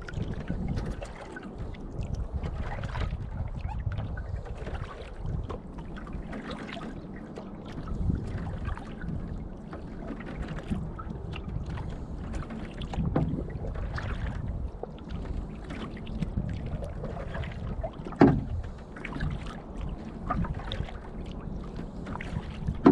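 Canoe paddling: irregular paddle strokes and water splashing and lapping at the hull, over a low wind rumble on the microphone. One louder knock about three-quarters of the way through.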